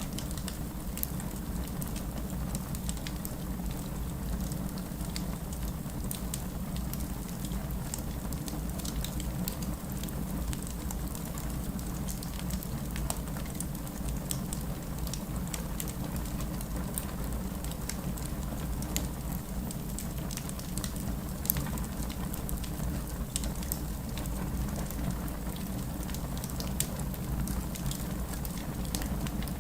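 Wood fire in a fireplace crackling steadily, with many small sharp pops and snaps scattered over a constant low rush of burning.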